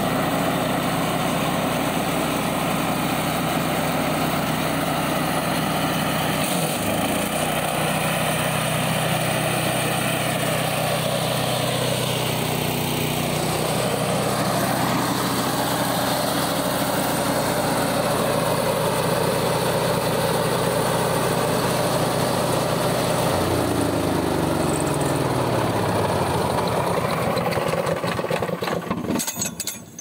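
Petrol engine of a remote-control flail mower running steadily, picking up speed about seven seconds in, holding there, then slowing back down about three-quarters of the way through; the sound drops away just at the end.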